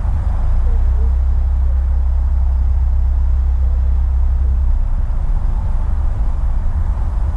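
Car moving slowly, a steady low rumble of engine and tyres heard from inside the cabin; the deepest part of the rumble eases a little about two-thirds of the way through.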